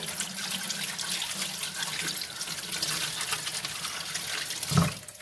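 Kitchen tap running in a steady stream, then shut off near the end.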